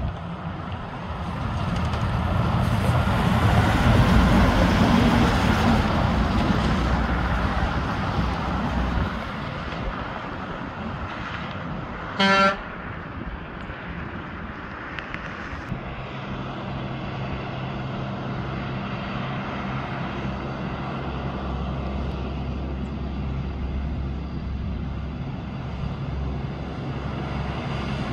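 Heavy diesel trucks on a mountain highway: a truck goes by loud and close in the first several seconds, then fades. A single short horn toot comes just before the halfway mark. After that, another truck's engine drones steadily as it comes down the road.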